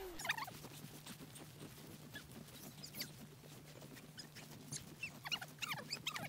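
Snow shovels scooping and throwing deep snow, with short high squeaky scrapes, a few early and several close together in the second half.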